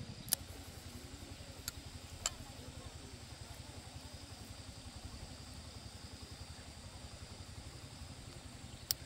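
A small engine running steadily in the background, a low even pulsing, with sharp metallic clinks of hand tools and small parts being handled: three in the first few seconds and one more near the end.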